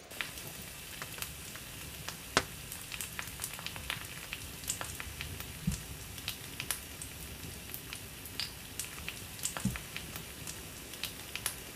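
Meat sizzling on an asado grill over wood embers: a steady hiss with frequent small crackles and pops.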